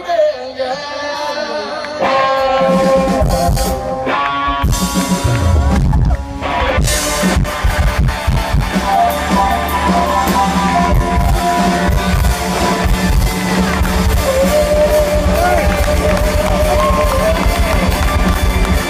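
Live rock band starting a song: electric guitar notes come in about two seconds in, then drums and bass join a couple of seconds later and the full band plays on loudly.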